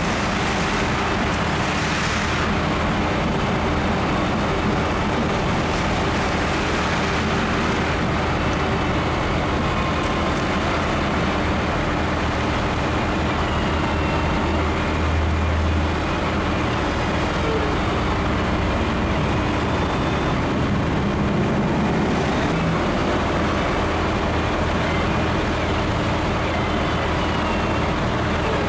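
Steady highway traffic noise, with a heavy engine idling close by in a low, steady hum.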